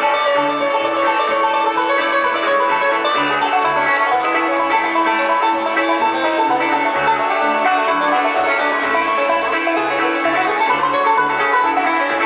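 Live bluegrass band playing: banjo, acoustic guitar and fiddle over upright bass notes keeping a steady beat.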